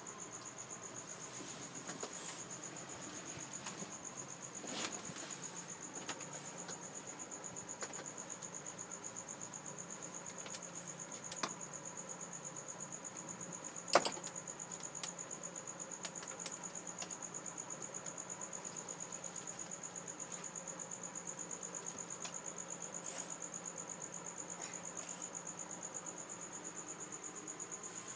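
A cricket chirps in a fast, steady, high-pitched trill the whole time. A few light knocks and taps are scattered through it, and the loudest is a single sharp knock about halfway through.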